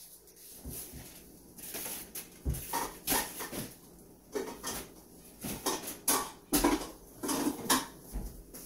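Kitchenware being handled: irregular clinks and knocks, sparse at first and busier from about two seconds in.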